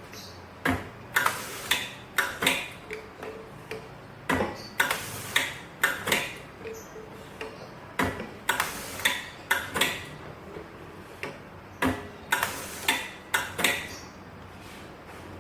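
Semi-automatic round-bottle labeling machine at work: bursts of sharp clicks and knocks that come in clusters about every four seconds, one cluster per bottle, over a faint steady hum.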